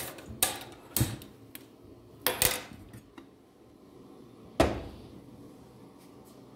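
Aluminium idli steamer pot knocking against the gas stove's metal grate as it is set on the burner: several short metal clanks, the loudest about four and a half seconds in.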